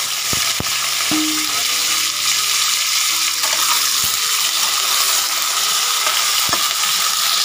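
Potato and eggplant pieces sizzling steadily in hot mustard oil in a kadhai, just added to the tempering. A spatula clicks against the pan a few times as they are stirred.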